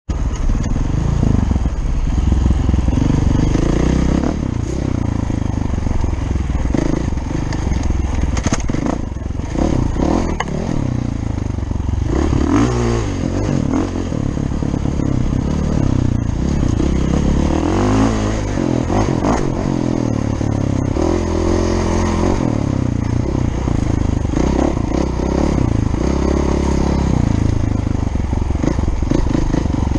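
Dirt bike engine ridden off-road, its revs rising and falling with the throttle, with rising and falling sweeps about 12 and 18 seconds in.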